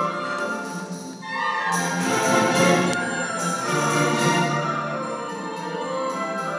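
Full symphony orchestra playing live in a concert hall. The music dips briefly about a second in, then swells louder.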